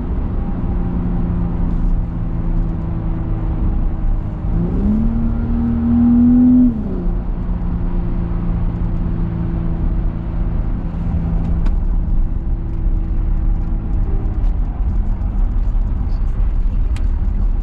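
Car engine and tyre noise heard from inside the cabin while cruising on a highway, a steady low hum. About five seconds in the engine note rises briefly, as under acceleration, holds for a couple of seconds, then settles back to cruising.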